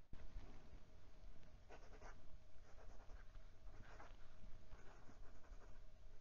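Fountain pen's fine 14k gold nib (Wing Sung 628) writing on Clairefontaine 90 gsm paper: a faint scratch of the nib in a string of short strokes.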